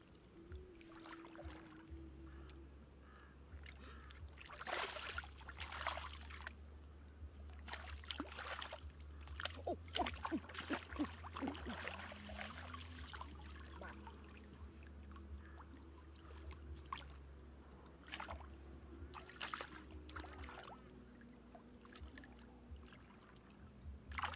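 Shallow water splashing and trickling in irregular bouts as a mesh net bag and hands are worked about in it and lifted out, over a steady low hum.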